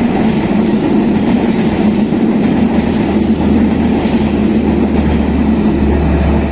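A train passing close by: a steady, loud rumble of wheels on rail. The deepest part of the rumble grows stronger over the last few seconds.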